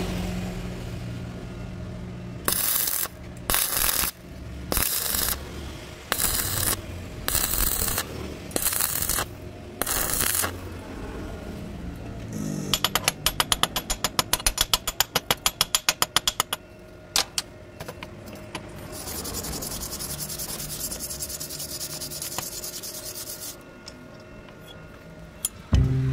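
Metal being worked with hand tools: about nine short scraping strokes under a second apart, then a fast run of sharp clicks for about four seconds, then a steady hiss lasting a few seconds.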